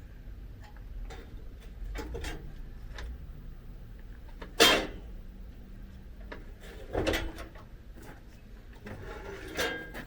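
Clunks and knocks of heavy parts being handled and set down. The loudest is a sharp bang about halfway through, with heavier thuds a couple of seconds later and again near the end.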